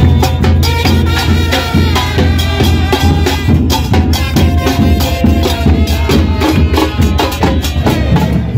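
Football supporters' band playing in the stands: bass drums (bombos) pounding a fast, steady beat with crashing cymbals, and brass such as trombone holding notes over the top.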